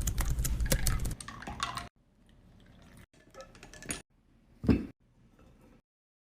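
Dishes and cutlery clinking and clattering for about two seconds, then a few faint, sparse clicks and drips, with one sharper knock a little before the end.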